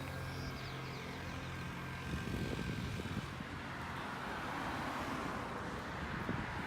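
Engine noise of a passing vehicle: a steady low hum, joined about two seconds in by a growing rush of noise.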